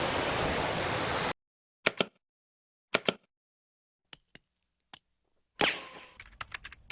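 Steady rush of a waterfall that cuts off abruptly about a second in. After that, scattered sharp clicks in silence, then a quick run of clicks near the end.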